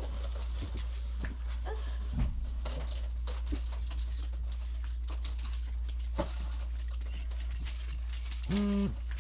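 Small metallic jingling and scattered clicks, like a dog's collar tags as it moves about, over a steady low hum. A short, low pitched sound comes near the end.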